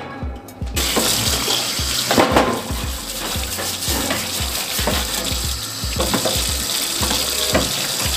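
Tap water running and splashing into a kitchen sink, starting just under a second in, while an oven rack and then a baking tray are scrubbed with a dish brush under the stream.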